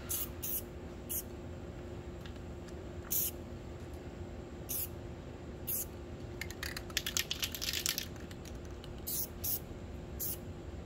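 Aerosol spray-paint can fired in short puffs, a fraction of a second each: about ten single puffs with a rapid flurry of them about two thirds of the way through, misting paint through a wad of fluffy batting held on the board to make soft cloud shapes.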